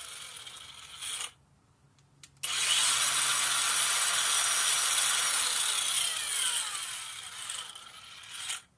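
Hyper Tough 20V brushless 4.5-inch cordless angle grinder running and cutting, its whine falling, then cutting off about a second in. After a short pause and a click it starts again at full speed and runs for about six seconds, its pitch falling near the end before it stops.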